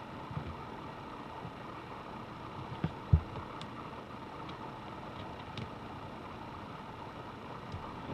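Steady background hiss with a few light knocks and faint ticks from handling a laptop during repair, one sharper low knock about three seconds in.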